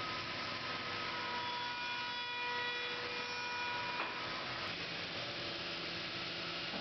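Bandsaw running: a steady hum and whine over an even hiss. About four seconds in, the higher tones drop away and a lower hum continues.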